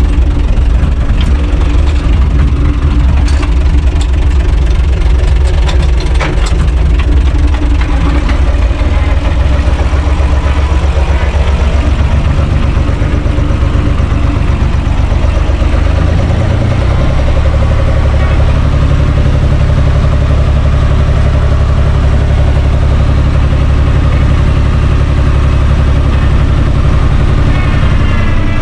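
Universal 445 DT tractor's four-cylinder diesel engine running steadily, heard from inside the cab, with a few knocks in the first several seconds. Its speed steps up slightly about 12 seconds in and again about 17 seconds in.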